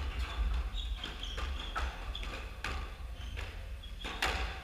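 Scattered knocks and brief high squeaks from footsteps and sneakers on a hardwood squash court floor, with one louder knock about four seconds in.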